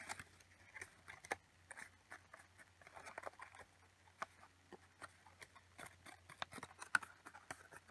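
Faint handling of a printed A4 paper model part as fingers fold and crease it: light crinkling with many small irregular ticks.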